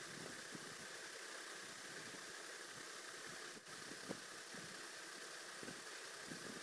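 Graphite pencil drawing on paper: a few faint short scratching strokes over a steady background hiss.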